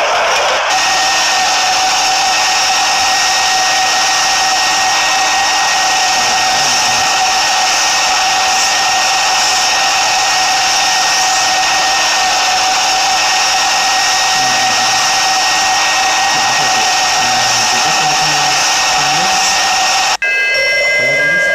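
Steady machine-like whirring noise with a constant whine through it, an appliance-type ambient track played back by a white-noise app. About twenty seconds in it cuts out briefly and gives way to a different sound made of several steady tones.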